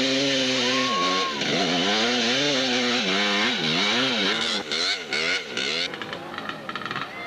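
Motocross motorcycle engine revving up and down repeatedly as the rider works the throttle, its pitch swinging every half second or so. About four and a half seconds in, the bike passes close by and the engine sound drops away, broken by short crackles.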